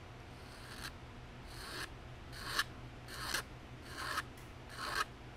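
Hand file rasping on wood in six push strokes, each getting louder through the stroke and stopping abruptly, taking down high spots while a wood patch is fitted into a chipped Luger grip.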